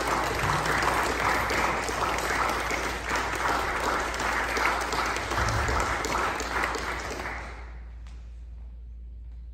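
Audience applauding, a dense patter of many hands clapping that dies away about three-quarters of the way through.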